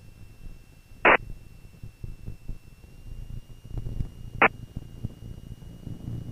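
Cessna Skyhawk's engine heard as a low rumble through the cockpit intercom, with a faint steady high whine. Two short, loud blips cut in, about a second in and again at about four and a half seconds.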